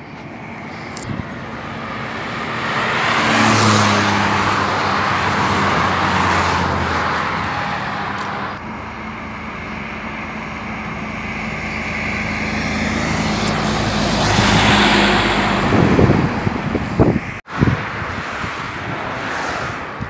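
Motorway traffic passing at speed: vehicles swell past twice, loudest about four seconds in and again about fifteen seconds in, with a low engine hum under the first pass. A few sharp knocks come near the end.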